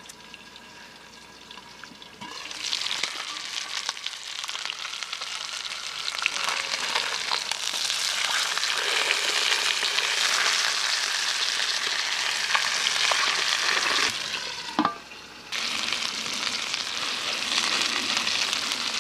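Fish frying in a greased pan, sizzling steadily. The sizzle starts about two seconds in and drops out briefly near the end before resuming.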